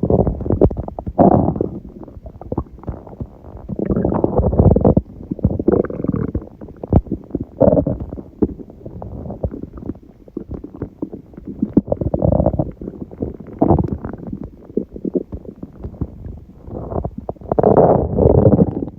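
A person's stomach growling and gurgling in irregular bouts, with many short pops and squelches between longer rumbles and the loudest rumble near the end. This is the gut digesting a large udon meal eaten hours earlier, which she puts down to a stomach surprised by gluten after a long break.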